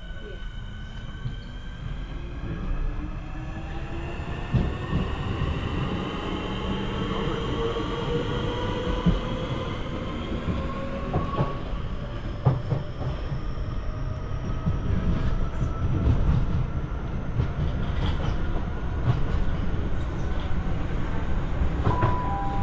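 Electric multiple-unit train accelerating: its traction motors whine in several tones that rise together in pitch over the first ten seconds or so, as the train picks up speed. Under the whine there is a steady rumble of wheels on rail, with scattered knocks from rail joints.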